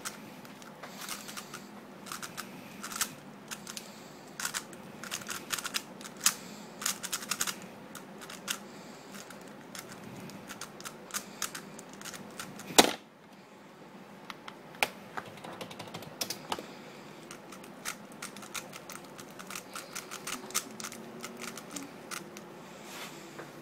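A 3x3 speedcube's layers being turned fast, giving clusters of rapid plastic clicks and clacks. One much louder sharp knock comes about halfway through.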